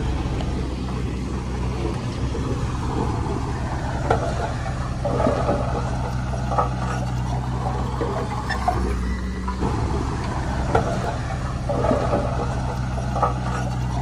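Komatsu D39PX crawler bulldozer's diesel engine running steadily, with intermittent clanks and rattles every second or two.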